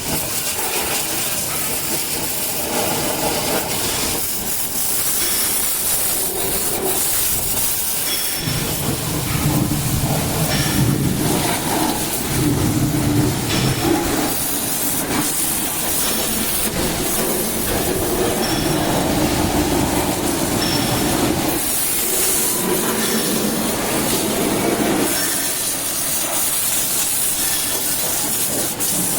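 Water jet hissing steadily as a backhoe loader is washed down, with a machine running underneath that grows louder and softer in spells.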